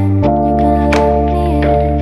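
Background music: sustained keyboard chords that change about a quarter second in, with sharp beat hits.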